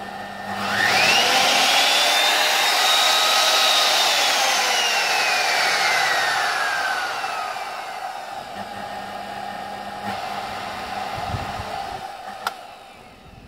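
Kenwood Chef stand mixer's electric motor running on the bench with its worm-gear spindle bare and no gearbox fitted. Its whine rises quickly in pitch as it speeds up, holds high for a few seconds, then falls slowly as it slows, and runs on at a lower, steadier hum. A sharp click comes near the end.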